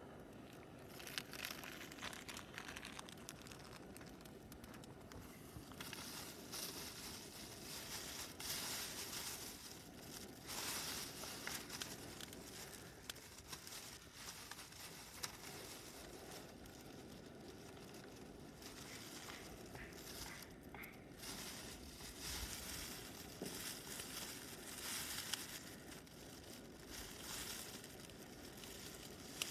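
Intermittent rustling and crinkling in irregular bursts, some louder than others.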